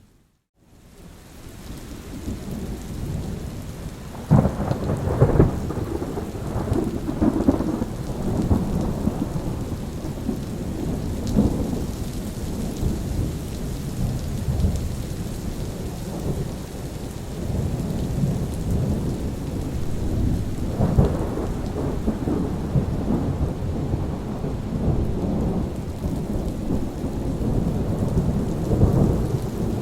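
Steady rain with rolling thunder, with sharper thunder cracks about four seconds in and again around twenty-one seconds. The sound drops out briefly at the very start and fades back in over the first few seconds.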